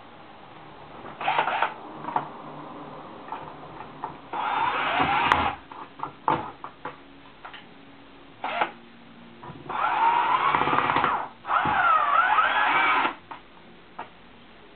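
Cordless drill-driver running in several short bursts, its motor pitch sliding up and down under load, as it drives fixings to mount a fabric roller blind cassette on a PVC window frame. The two longest bursts come near the end, with clicks and handling noises in between.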